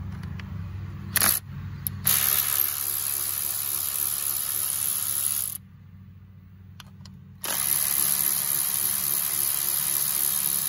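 Hand-held power tool, such as a cordless ratchet or drill, running in two long bursts of about three seconds each, with a brief blip just before the first.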